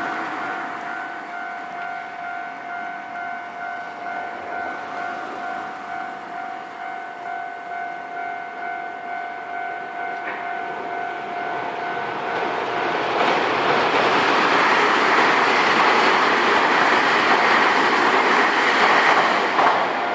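Level-crossing warning bell ringing with its steady repeated two-tone chime. About thirteen seconds in, a Nankai Main Line train passes over the crossing, its running noise growing loud and drowning out the bell until it fades near the end.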